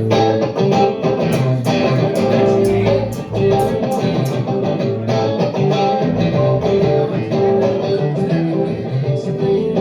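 Electric guitar played during a band's sound check, a continuous run of picked and strummed notes and chords that keep changing pitch.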